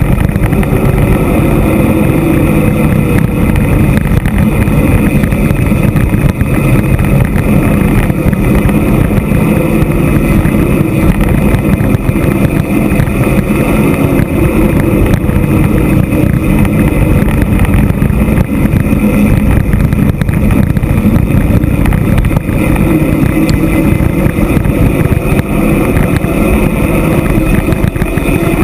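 Loud, steady rumble of wind rushing over the microphone of a camera on a bicycle descending a mountain road at speed.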